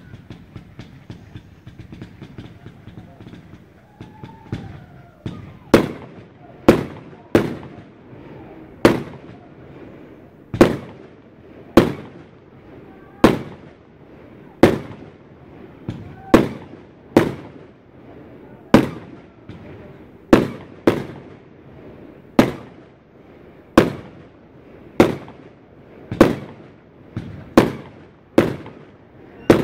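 Fireworks cake (Vulcan/Linders Grand Cake, 20–50 mm calibre) firing. For the first few seconds it makes a dense quick crackle. From about six seconds in comes a steady string of sharp bangs, roughly one a second, each with a short echoing tail.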